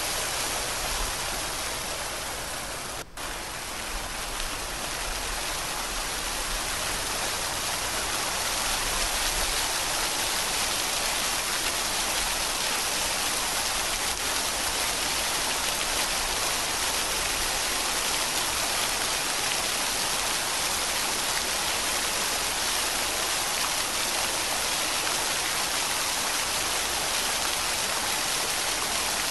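Steady rain, an even continuous hiss, with a momentary drop-out about three seconds in.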